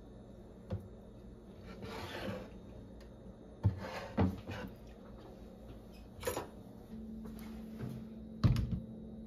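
Household handling sounds in a small room: a brief rustle, then a handful of irregular knocks and thuds, like things being set down or cupboard doors moved. A faint low hum comes in about seven seconds in.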